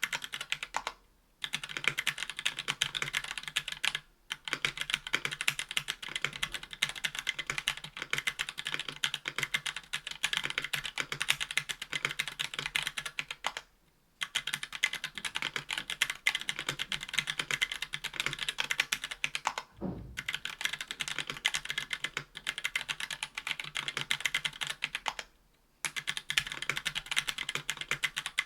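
Fast typing on a mechanical keyboard: a KBDfans Tofu 60% aluminium-cased board with Hako Royal Clear tactile switches on an aluminium plate and GMK keycaps, a rapid stream of keystroke clacks broken by a few brief pauses.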